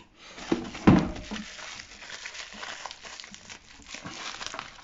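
Plastic packaging crinkling and rustling as a small wrapped item is handled and unwrapped, with a louder knock about a second in.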